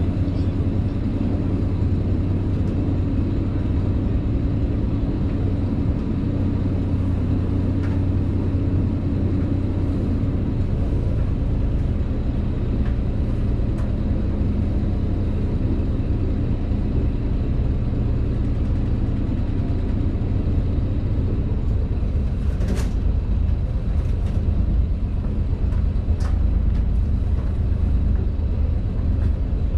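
Small tour boat's motor running steadily with a low, even hum that shifts slightly in pitch partway through. Two short knocks come near the end.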